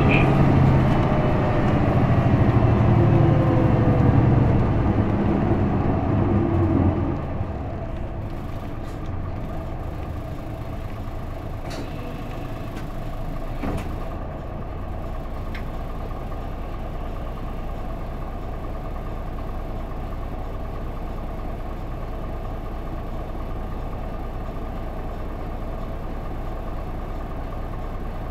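Onboard an Isuzu Erga PJ-LV234L1 city bus with its six-cylinder diesel. For the first several seconds the engine's pitch slowly falls as the bus slows. From about seven seconds in the engine idles steadily while the bus stands, with a single click about fourteen seconds in.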